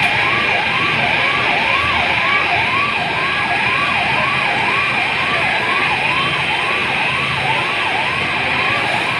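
Emergency vehicle siren in a fast yelp, its pitch rising and falling about twice a second, over a steady loud hiss.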